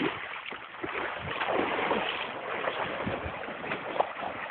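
Mountain bike tyres splashing and churning through a shallow ford, water spraying around the wheels.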